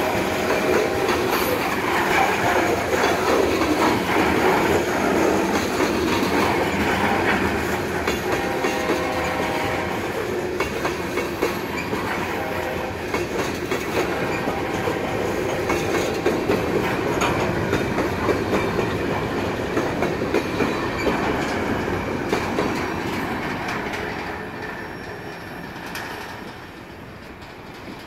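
Freight cars rolling past at close range, wheels clacking over the rail joints with a little wheel squeal, and the locomotive's horn blowing faintly in the distance for a crossing further down the line. The rolling noise fades over the last few seconds as the end of the train goes by.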